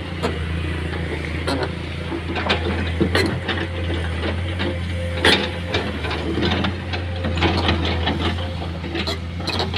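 Heavy diesel machinery running with a steady low engine drone, with scattered sharp knocks and clatter over it.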